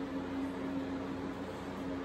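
Room tone: a steady low hum with an even drone and a faint hiss.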